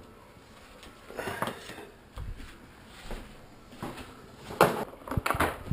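Scattered handling noises: light knocks and rustles, with a louder cluster of knocks near the end.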